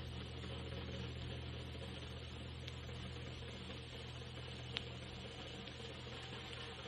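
Vinyl LP surface noise in the quiet groove between tracks: a steady hiss and low hum, with a couple of crackle clicks, the sharpest nearly five seconds in.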